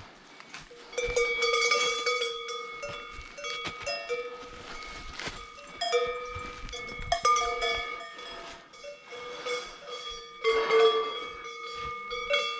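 Bells worn by cattle clanking irregularly, starting about a second in, each strike ringing on into the next.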